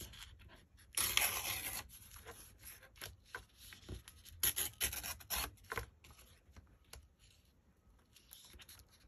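Paper tearing and scraping along the edge of a clear acrylic ruler: a longer tear about a second in, then a run of short rips and rubs that die down over the last few seconds.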